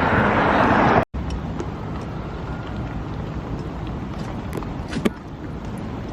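Steady road noise of a car in motion. It drops abruptly in level about a second in, with a short knock near the end.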